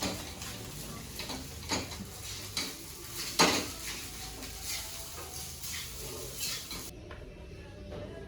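Metal utensils clinking and scraping against a pan and dishes during home cooking, in irregular knocks with one loud clank about three and a half seconds in. The background hiss cuts off abruptly about seven seconds in.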